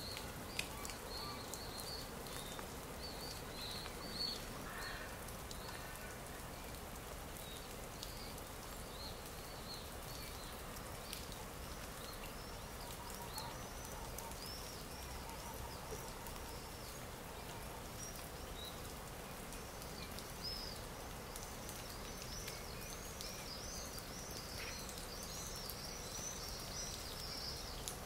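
Looped stock nature ambience: many small birds chirping in short, quick arched notes over a steady background hiss, the chirping growing busier in the last third.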